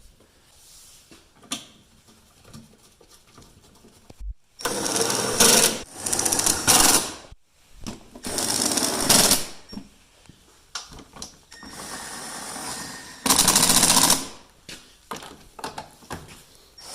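Cordless power driver run in four bursts of a second or so each, driving in the headlight's mounting bolts, each burst a rapid rattle, with small knocks of handling between.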